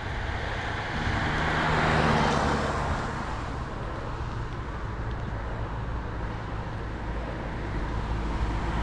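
Road noise on a wet road: a steady low rumble, with a car passing on the wet tarmac whose tyre hiss swells about two seconds in and then fades.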